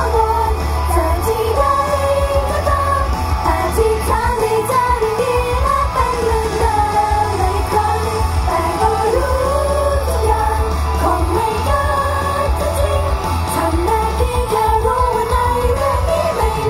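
Female singers singing a pop song into handheld microphones over a backing track with a steady, heavy bass beat, amplified through PA speakers.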